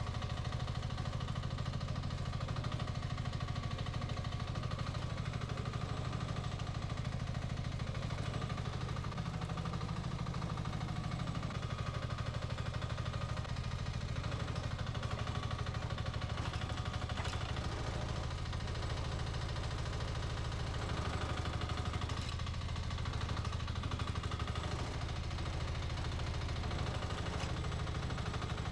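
Small engine of a 1-ton mini excavator running steadily, with a low even hum and only slight rises and dips in level.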